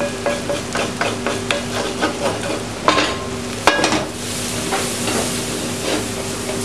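A metal spoon scrapes and clinks as toasted flour is scraped out of a frying pan into a stainless saucepan. About three seconds in come a couple of sharp metal knocks as the pan is put back down on the stove top. Then stirring in the saucepan goes on with a steady sizzle, over a low steady hum.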